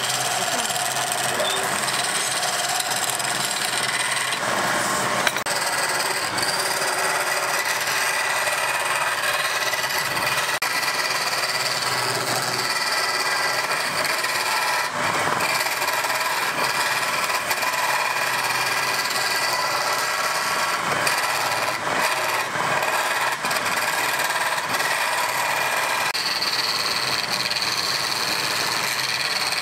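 Wood lathe running while a hand-held turning tool cuts into the spinning wooden blank: a steady scraping hiss of the cut over faint steady tones from the machine, with a higher edge to the cut about four seconds before the end.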